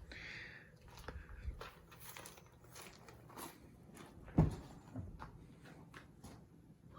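Footsteps with scattered light clicks and knocks, and one louder thump about four and a half seconds in.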